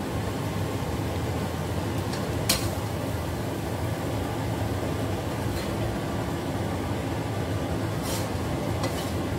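Metal spatula clinking and scraping against a stainless steel pan as stir-fried corn is scooped into a bowl: a few sharp clinks, the loudest about two and a half seconds in. Under them runs a steady hum.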